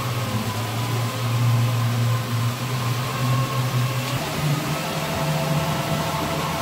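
Cruise boat engine running steadily under way, its hum stepping up a little in pitch about four seconds in, over the rush of water past the hull.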